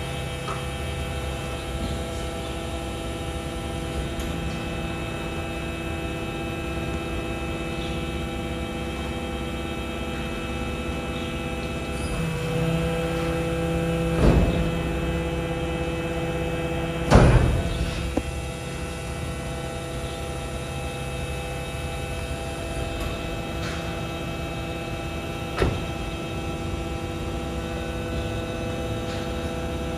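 BYD electric garbage truck humming steadily with several fixed tones, which shift about 12 seconds in. Two loud thuds come about 14 and 17 seconds in, and a shorter knock near the end.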